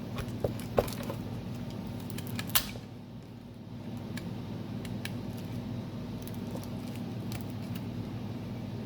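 Cables and plugs being handled and connected: a few sharp clicks and light rattles, one louder click about two and a half seconds in, over a steady low hum.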